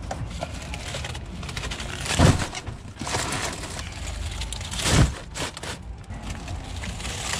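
Cases of plastic-wrapped bottled water being set down in a car's cargo area: two heavy thuds, about two seconds and five seconds in, with lighter handling noise between.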